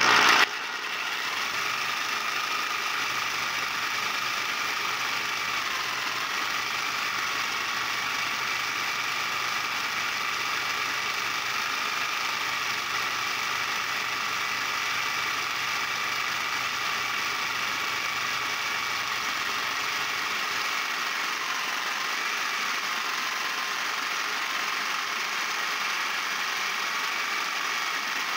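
Reciprocating saw rigged as a paint shaker, running at medium speed and shaking a clamped jar of metallic paint to mix it. The motor whine starts about half a second in and holds steady, sagging slightly in pitch a couple of times.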